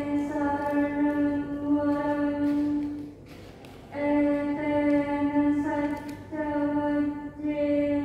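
A woman's voice chanting Buddhist paritta on one level, held pitch, in long phrases with a short pause for breath about three seconds in.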